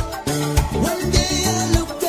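Background music: an upbeat song with a steady drum beat.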